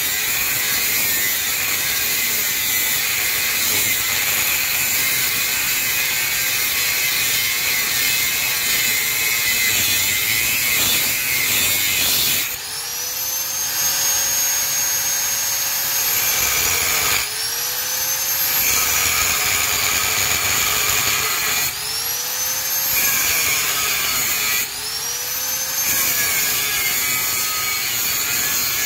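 Angle grinder with a cut-off disc cutting through a steel motorcycle frame tube: a steady grinding hiss. From about halfway through it breaks four times: the disc comes free and spins up with a rising whine, then the pitch drops as it bites back into the metal.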